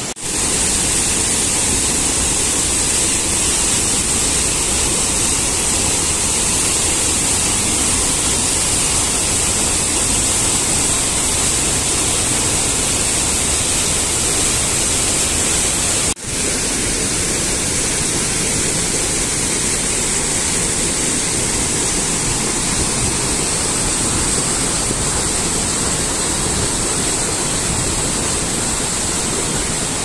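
Mountain stream and small waterfall rushing over rocks: a steady rush of water that drops out for an instant about halfway through and then resumes.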